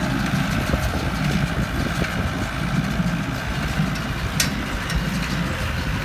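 Massey Ferguson 675 tractor's diesel engine running steadily, with one short click about four seconds in.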